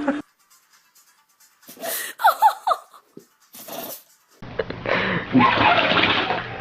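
A dog sneezing in a few short, sharp bursts about two and three and a half seconds in, with squeaky high sounds between them. A different recording follows with people laughing and talking.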